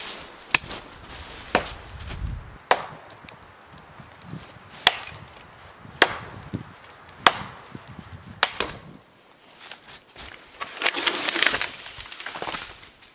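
A hatchet chopping into a small dead tree: about eight sharp wooden blows, roughly a second apart. Near the end comes a two-second rush of cracking and rustling as the tree breaks and falls through the branches.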